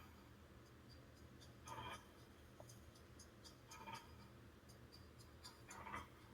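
Near silence: faint room tone, with a few soft, brief sounds about two seconds apart.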